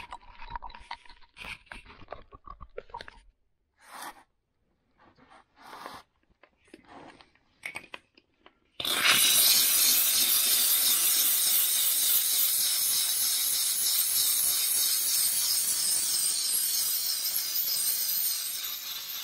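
Scattered short rustles and knocks of handling. About nine seconds in, a handheld steam cleaner suddenly starts, and a loud, steady hiss of steam jets from its brush nozzle onto a white-wall motorcycle tyre.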